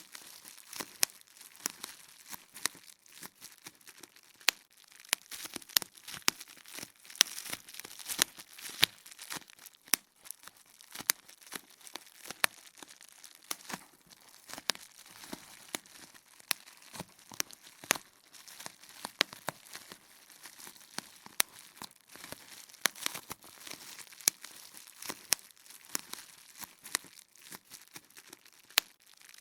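Plastic bubble wrap being popped and crinkled: irregular sharp pops, several a second, over a continuous crackle of the plastic being handled.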